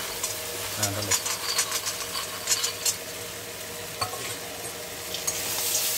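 Metal spatula scraping and clicking against a steel kadai as vegetables are stirred in hot oil, with a low sizzle and a steady hum underneath.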